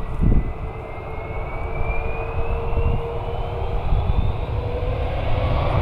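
Aircraft engines with a whine that rises steadily in pitch, over a low rumble; a second rising whine comes in near the end.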